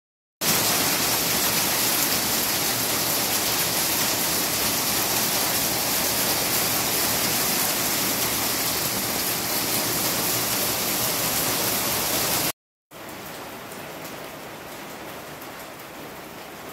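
Hail pelting a concrete courtyard: a dense, steady hiss of falling hailstones. About twelve seconds in it cuts off for a moment and carries on noticeably quieter.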